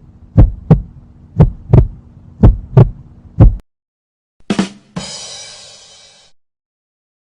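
Heartbeat sound effect: deep paired lub-dub thumps about once a second over a low hum, stopping about three and a half seconds in. About a second later comes a short hit, then a bright ringing sound that fades away over about a second and a half.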